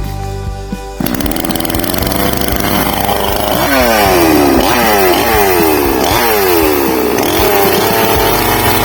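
Ibell two-stroke chainsaw running, revved in a series of quick throttle blips about half a second apart, each falling back in pitch, then held at a steadier, wavering speed near the end.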